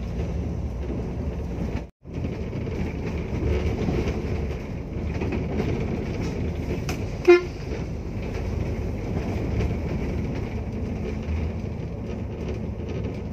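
Steady rumble of a coach's engine and road noise heard from inside the moving bus, with one short horn toot a little past halfway through, the loudest sound here.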